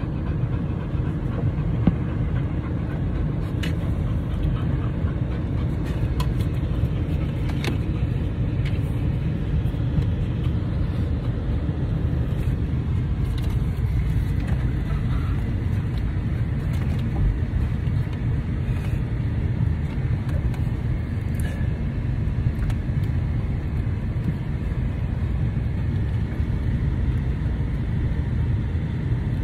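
Steady low rumble of road and engine noise heard inside a moving car's cabin, with a few faint clicks here and there.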